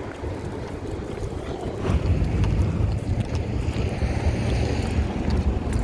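Wind buffeting the microphone, a low rumble that grows stronger about two seconds in.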